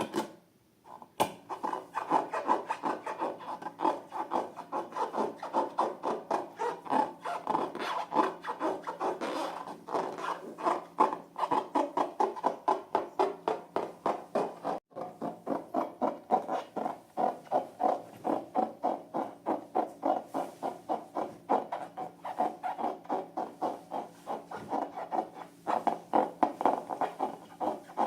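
Slime being squeezed and kneaded by hand: a steady run of squishing strokes, about two or three a second, with a short pause near the start.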